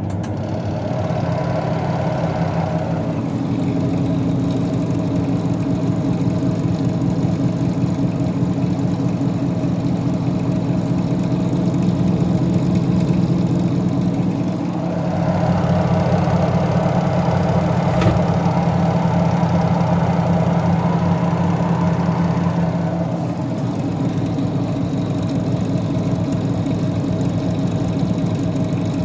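Semi-automatic washing machine's spin motor running under mains power, turning the spin tub with a steady hum, as it is tested for proper rotation after a new bush and buffer seal were fitted. The hum changes in tone a few times, with a single sharp click about 18 seconds in.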